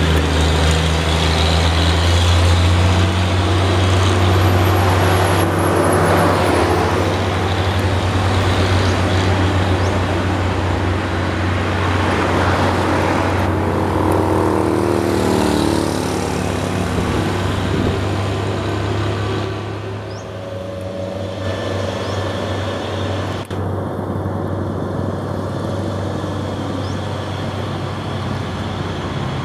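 Heavy diesel trucks climbing a hill past the roadside, engines running with a strong low hum; around the middle the engine note slides in pitch as a truck changes speed, then fades into general traffic noise. A single sharp click comes about three-quarters of the way through.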